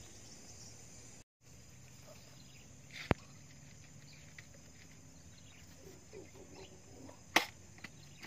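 Faint, steady insect chorus with a constant high-pitched buzz, over a quiet outdoor background. Two sharp knocks cut through it, one about three seconds in and one near the end, and all sound briefly drops out about a second in.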